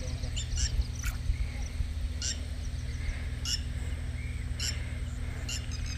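A bird giving a short, sharp call, repeated about once a second, over a steady low rumble.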